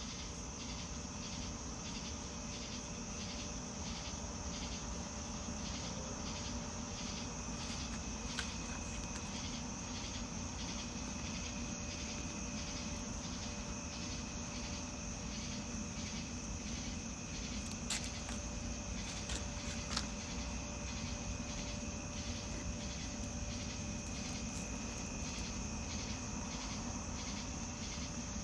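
Insects chirping steadily in the background, a high pulsing trill repeating about twice a second. A few faint clicks, the loudest near the two-thirds mark.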